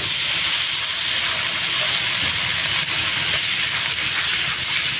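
Loud, steady hiss that starts abruptly and holds on: food sizzling on a hot dosa griddle.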